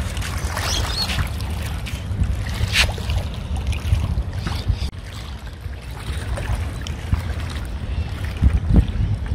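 Wind buffeting the microphone, a steady low rumble that rises and falls, with a single sharp click about three seconds in.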